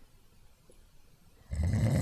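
A person snoring: a quiet pause between breaths, then a loud, low, pulsing snore that starts about three-quarters of the way through.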